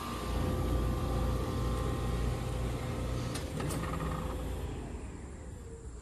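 Trane outdoor heat pump condensers running, a steady low hum with fan whoosh. Near the end the sound drops and one tone of the hum starts to fall steadily in pitch, as a unit winds down.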